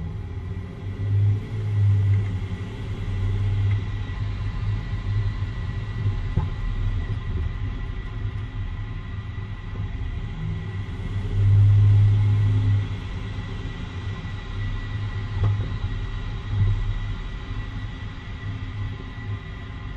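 2013 Jeep Wrangler Unlimited under way: a steady low drivetrain and road rumble, swelling louder about a second in and again around twelve seconds, with a few faint knocks.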